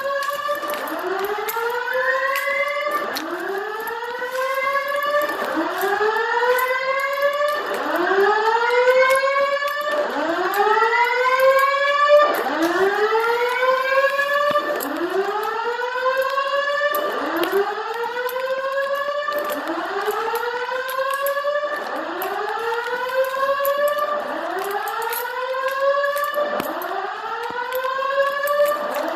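Fire alarm evacuation signal from a Simplex voice evacuation system: a repeating rising whoop tone, one sweep about every second, heard in two copies slightly out of step as from several speakers.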